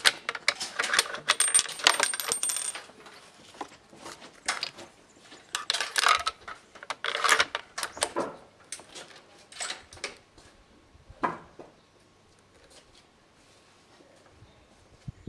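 Metallic clicks and clinks of cartridges and a bolt-action rifle being handled between shots. A dense rattle with a light ringing comes first, then scattered single clicks, tapering off before the next shot.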